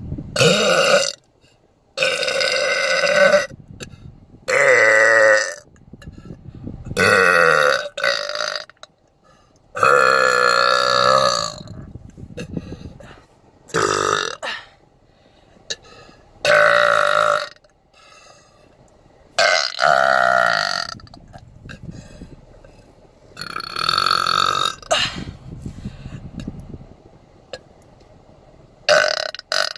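A woman belching deliberately, over and over: about ten loud, pitched burps, each lasting one to two seconds, with short gaps between them.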